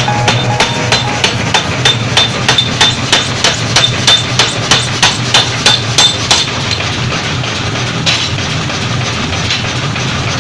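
Mechanical forging hammer striking metal in a fast, even rhythm, about three blows a second, over the low hum of the running machine. The blows stop about two-thirds of the way through, leaving the machine running.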